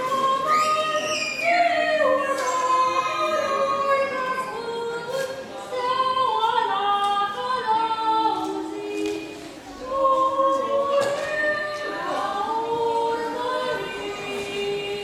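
Two women singing a Romanian Christmas carol (colindă) unaccompanied, a slow melody of held notes with sliding pitch changes.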